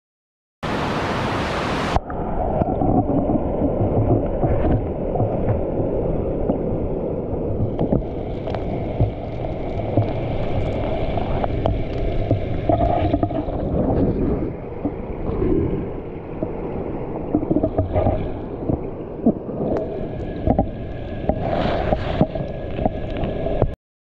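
Stream water rushing briefly, then the muffled underwater sound of the flowing stream, a dull churning rumble with gurgling and scattered small clicks, cutting off suddenly near the end.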